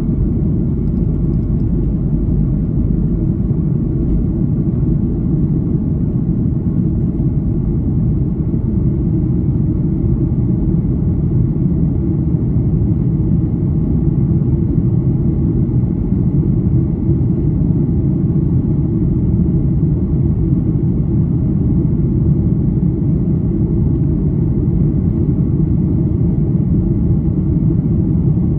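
Boeing 737-800's CFM56-7B turbofan engines at takeoff thrust, heard from inside the cabin: a loud, steady, deep rumble through the end of the takeoff roll and the initial climb.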